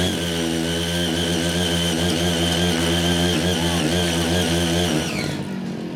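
Small engine of a CY80 mini cultivator running steadily under load as its six rotary blades dig and till hard, weedy ground, the engine note wavering slightly with the load. About five seconds in the engine drops away.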